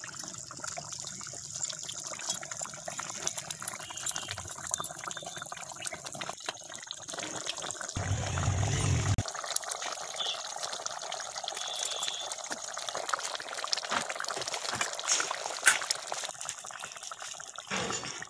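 Fish curry boiling hard in a kadhai: a steady bubbling hiss full of fine pops and crackles. Midway there is a low rumble lasting about a second.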